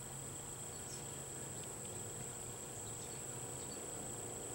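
Steady high-pitched trilling of an insect chorus, unchanging throughout, with a low hum and a few faint ticks beneath it.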